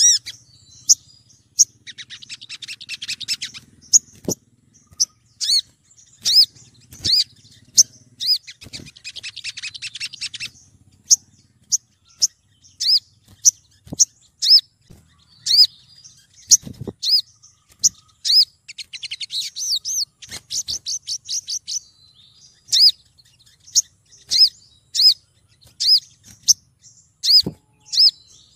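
Female olive-backed sunbird calling for a male: sharp, down-slurred single chip notes repeated every half second or so, broken three times by a burst of rapid chattering trill.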